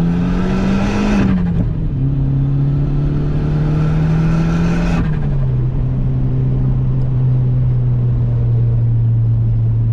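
Mk4 Volkswagen Jetta's turbocharged 2.0 8-valve four-cylinder engine accelerating hard at full throttle. The engine note rises, drops at an upshift about a second and a half in, rises again, and drops at a second upshift about five seconds in, then holds steady. This is a wide-open-throttle test pull after a new ignition coil pack was fitted to cure a misfire.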